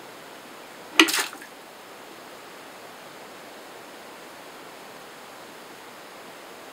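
Thin stream of water trickling steadily into a tipping-bucket siphon starter. About a second in, the full bucket tips over with a sharp knock and a short rush of water as it dumps, the pulse of water that starts a low-flow siphon.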